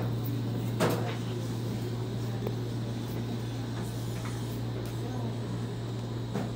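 Steady low room hum, with one sharp knock about a second in and a faint, softer tap later, over faint murmuring.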